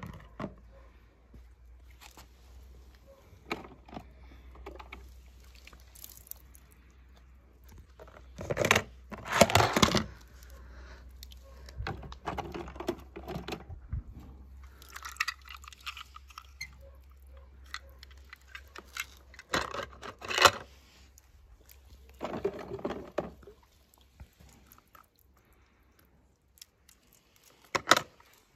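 A hand splashing and rummaging in a plastic tub of water to fish out toy cars: irregular splashes and knocks, the loudest about nine to ten seconds in, and a sharp knock near the end as the cars are set down in a plastic basin.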